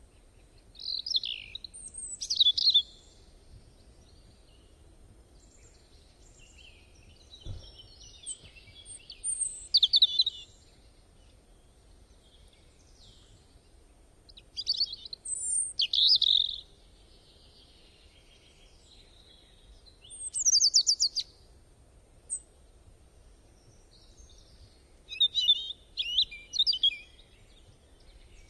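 A songbird singing: short bursts of high chirps and trills about every five to six seconds, over a faint steady hiss.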